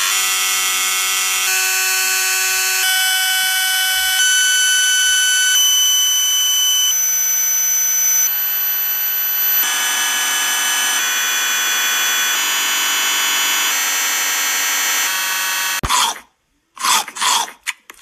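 Harsh, distorted electronic buzz from heavily processed video-effect audio: many stacked steady tones that shift in steps every second or so. It cuts off suddenly near the end.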